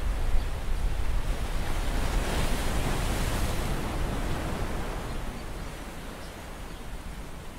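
Wind buffeting the microphone over the wash of the sea. A louder rush of noise swells about halfway through, and the whole sound gradually fades toward the end.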